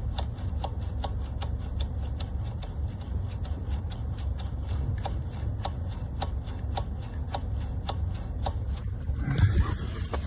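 Electric power steering unit of a 2016 Hyundai Elantra clicking as the steering wheel is turned back and forth, about three sharp clicks a second over a low steady hum. The owner puts the knock down to the power steering unit in sub-zero cold, with no play in the steering shaft joint, and says it goes away once the cabin warms up.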